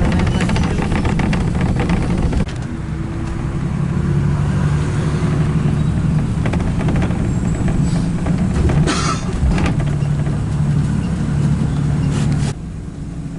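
Car engine and road noise heard while driving, a steady low hum that changes abruptly about two and a half seconds in and again near the end.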